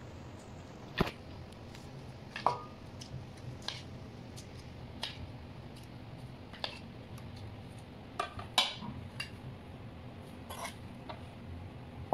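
A spoon tapping and scraping on bowls as thick yogurt-tahini sauce is spooned out: short, sharp clicks and knocks at irregular intervals, a cluster of them near the end, over a low steady hum.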